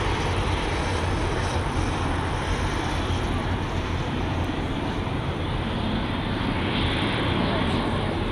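Boeing 737-600's CFM56 turbofan engines running at taxi idle: a steady jet rumble and hiss that grows a little louder and brighter near the end.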